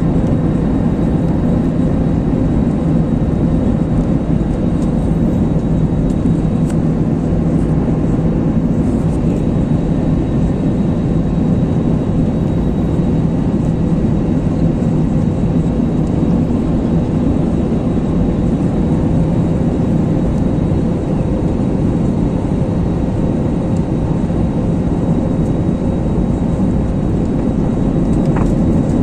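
Jet airliner cabin noise on final approach: a steady, loud drone of the engines and rushing air heard from inside the cabin.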